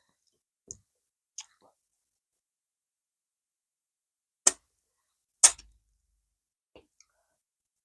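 A handful of short sharp mouth clicks and smacks of eating, about six in all, the two loudest about four and a half and five and a half seconds in.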